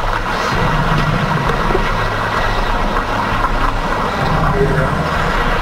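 Playback of a noisy investigation recording through audio-editing software: a steady low hum under a constant rushing hiss, with a few faint clicks.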